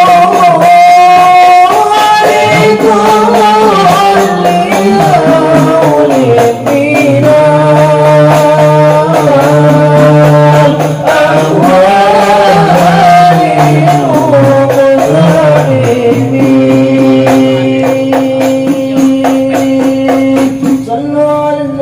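Men's voices singing an Arabic devotional hymn together, with long held notes sliding between pitches, over a light, quick percussive tapping.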